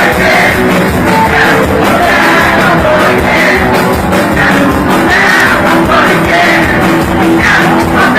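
Punk rock band playing loud and continuous, with drums, guitar and bass under a sung, partly shouted vocal.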